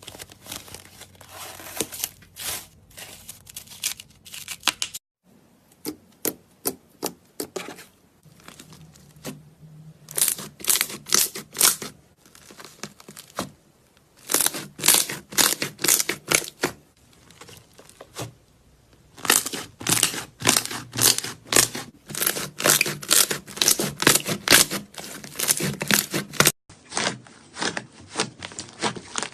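Slime being squeezed and stretched by hand, giving clusters of rapid crackling and popping sounds in bursts of a few seconds. There are abrupt cuts between takes.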